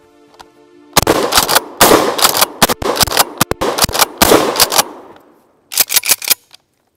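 Mossberg Maverick 88 pump-action shotgun firing: a rapid run of loud shots, many in quick succession, starting about a second in. After a brief pause there is a last short cluster of shots near the end.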